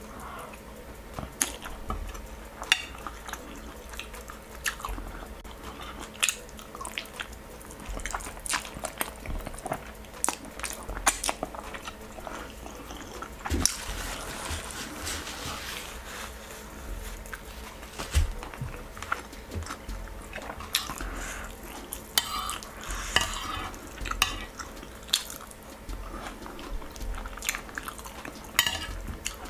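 Eating: a metal spoon clinking and scraping against a ceramic plate of rice and stew in irregular sharp clicks, with chewing between mouthfuls.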